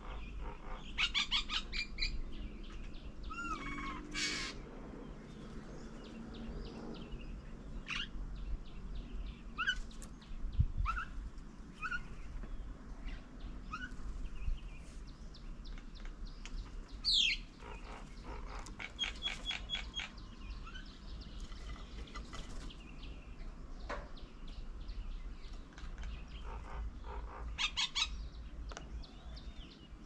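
Several wild birds calling: short chirps, rapid trills and a loud falling whistle just past the middle, over a steady low rumble.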